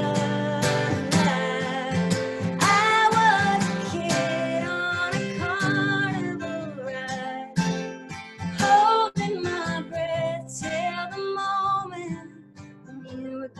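A woman singing with her own acoustic guitar, strummed, with long held notes. It grows quieter near the end.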